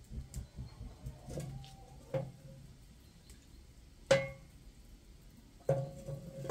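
Hard kitchenware clinking four times, each knock ringing briefly, the loudest about four seconds in, over a faint low rumble.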